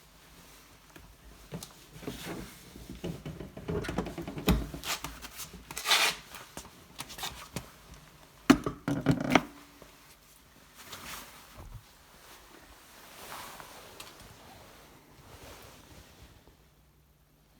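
Irregular knocks, clunks and rubbing from a car seat being handled and lifted out, with the loudest clunk about 8.5 seconds in, then fainter rustling.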